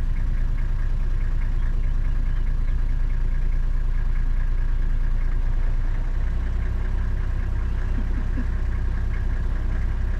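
Safari vehicle's engine idling steadily, its low rumble growing a little stronger about six seconds in.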